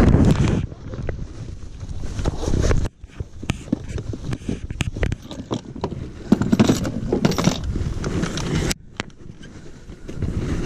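Irregular clicks, knocks and rustling from gear being handled in a small boat, over the rumble of wind on the microphone.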